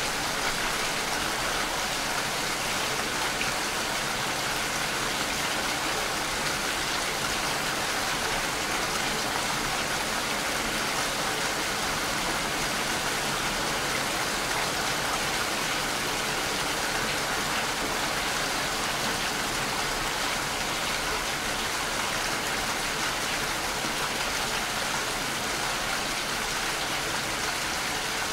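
Steady rain falling, an even, unbroken hiss of many drops with no single distinct impacts.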